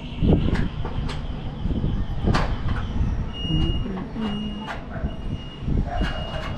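Irregular metal knocks and clanks, about a dozen, one louder than the rest about two and a half seconds in, as a hand tool works on rusty corrugated iron roofing sheets, over a steady low rumble.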